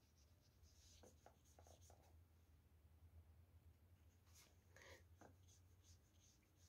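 Near silence: faint, scattered strokes of a paintbrush laying India ink wash on cardstock, over a low steady hum.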